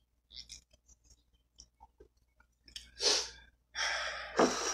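A person breathing and making small mouth sounds close to the microphone: scattered faint clicks, then a short breath about three seconds in and a longer, louder one near the end.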